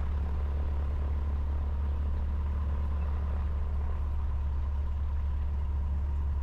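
Cessna 150's four-cylinder air-cooled Continental O-200 engine and propeller idling steadily, heard from inside the cabin as an even, low drone.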